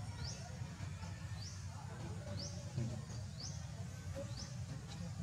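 A short, high chirp rising in pitch, repeated about once a second, over a low steady rumble.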